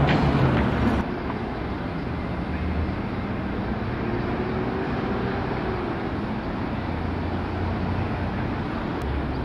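Steady low rumble of vehicle noise, dropping a little in level about a second in.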